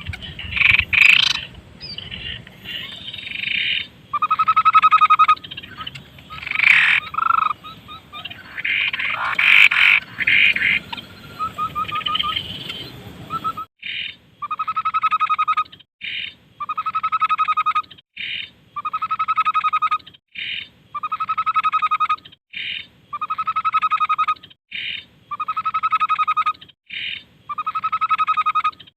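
Tepus babbler calling in a masteran tutor recording for caged songbirds: mixed, varied calls in the first half, then a trilled call repeated steadily about every two seconds with short notes between.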